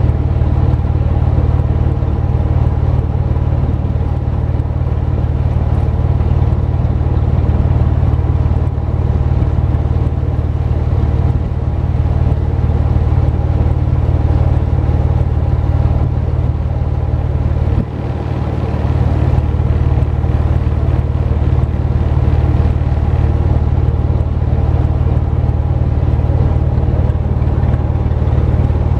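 Boat engine running steadily under way, a deep, even drone. The engine note dips briefly about two-thirds of the way through, then builds back up.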